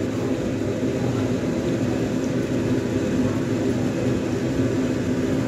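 Steady hum and rushing air of a running electric fan.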